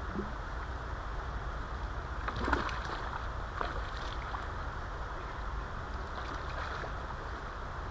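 Shallow river water splashing around a wading angler, loudest in a short cluster about two and a half seconds in, over a steady rushing background.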